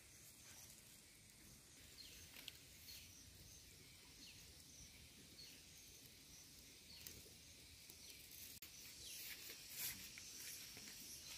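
Near silence: faint outdoor ambience with scattered short, high chirps.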